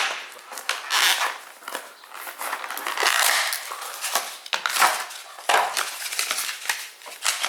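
Packaging being opened and handled by hand: irregular rustling, scraping and sharp clicks.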